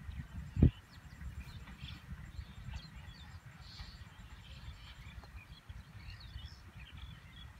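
Low wind rumble on the microphone with small birds chirping now and then, and a single heavy low thump about half a second in.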